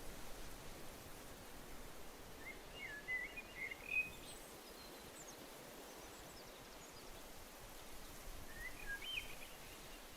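A songbird singing two short phrases of quick chirps, one about two and a half seconds in and another near the end, with a few faint high notes between, over a steady outdoor hiss.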